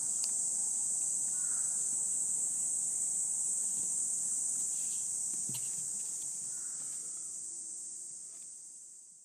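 A steady, high-pitched chorus of insects, fading out near the end.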